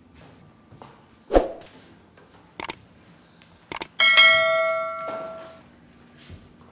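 Subscribe-button animation sound effect: a thump, two sharp mouse-click sounds, then a bell ding about four seconds in that rings out and fades over a second and a half.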